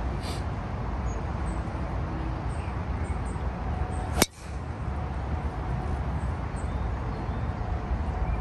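Golf driver striking a teed ball: one sharp crack about four seconds in, over a steady low rumble.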